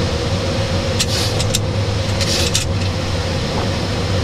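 Boeing 737 cockpit noise during climb-out: a steady rumble and rush of engines and airflow, with a steady tone that sets in right at the start. Two short hisses come about a second and two seconds in.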